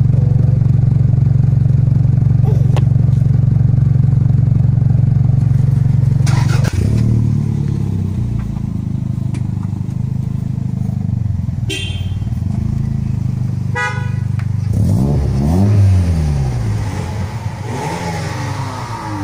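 Toyota Celica GT-Four's turbocharged four-cylinder engine idling through a large-bore tailpipe, loud and steady close to the pipe, then quieter after about seven seconds. Near the end the engine is revved twice, its pitch rising and falling each time.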